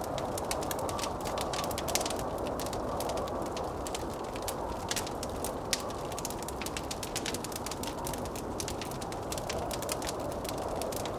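Wood fire crackling with dense, irregular pops, over a steady rush of blizzard wind that slowly swells and eases.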